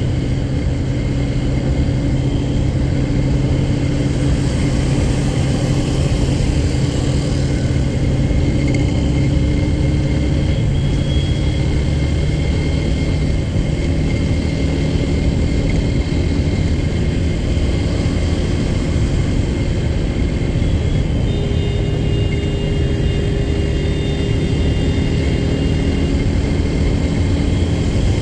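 Royal Enfield GT 650's parallel-twin engine and exhaust running at a steady cruise, heard from the rider's position, with the pitch shifting slightly a few times as speed changes.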